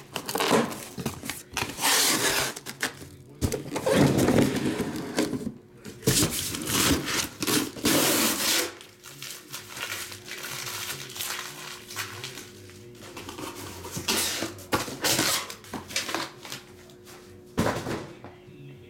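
Cardboard shipping case being pulled open and the sealed boxes inside handled and set down: irregular rustling, scraping and knocks of cardboard. The handling is dense for the first half, then turns to scattered taps, with a sharp knock near the end.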